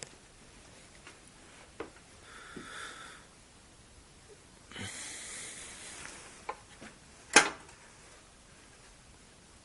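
Small clicks and handling noises from optical-fibre splicing work. There is a short whir a little over two seconds in, a longer hiss near five seconds, and a sharp click, the loudest sound, about seven seconds in.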